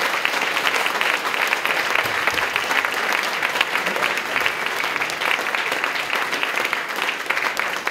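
Small audience applauding: dense, steady clapping that keeps an even level throughout.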